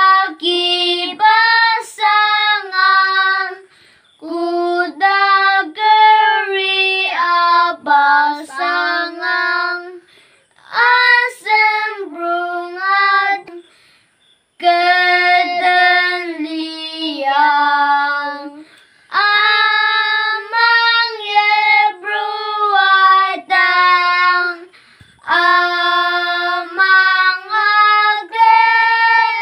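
Two young boys singing a hymn together unaccompanied, line by line, with short breathing pauses between the phrases.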